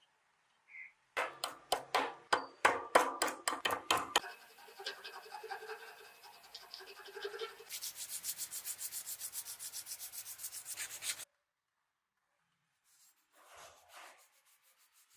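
Hand-worked abrasive rubbing on the knife: about ten separate sharp strokes, then quicker, even back-and-forth rubbing that cuts off abruptly, with a few faint strokes near the end.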